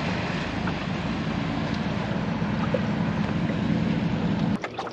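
Steady engine drone of a passing motor workboat, with a rush of wind and water over it; it cuts off suddenly near the end.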